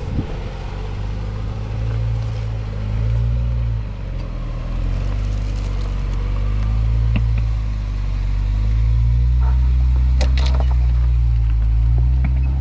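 Jeep Wrangler JK engine running at low speed on a trail, a steady low drone that grows louder about two-thirds of the way through, with a few brief knocks near the end.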